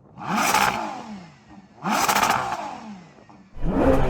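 A car engine revved in three sharp blips, each rising fast and then dying away. The third starts near the end. It carries a whine that sounds like a supercharger.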